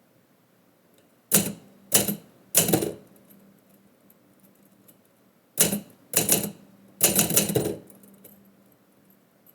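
Typewriter keys being struck in two short flurries: three quick bursts of strokes about a second in, then three more about five and a half seconds in, the last a rapid run of keystrokes.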